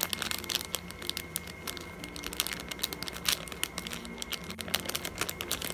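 Clear plastic packaging bag crinkling as hands handle and squeeze the sealed squishy toy inside it, a dense, irregular run of small crackles.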